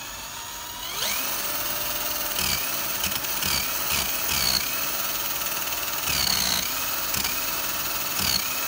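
Cordless drill spinning a brushless permanent-magnet washing-machine motor as a generator: a steady whine that rises as the drill speeds up about a second in. The whine then sags in pitch briefly about five times, each sag with a low thump, as the motor's output wires are touched together and the short circuit brakes it.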